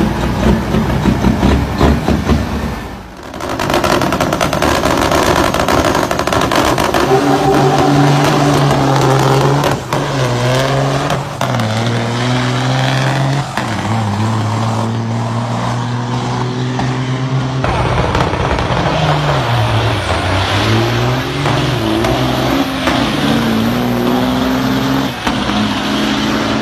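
Truck engine running, its pitch holding steady for a few seconds at a time, stepping down and rising again several times. There is a brief drop in level about three seconds in.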